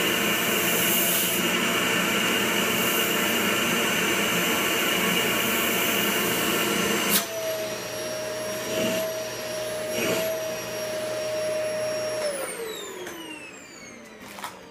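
A vacuum cleaner sucks the air out of a vacuum storage bag through its hose on the bag's valve. About halfway through, the sound changes abruptly as the nozzle comes off the valve, and the motor runs on more quietly with a steady whine. Near the end it is switched off and winds down with a falling pitch.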